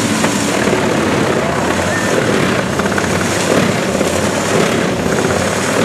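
Eschlböck Biber 70 wood chipper running under load as whole tree trunks are fed into it and chipped: a loud, steady mechanical din.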